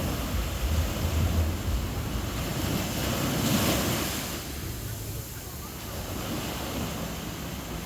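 Sea waves washing onto a sandy beach, one wave swelling and breaking about halfway through, with wind buffeting the microphone.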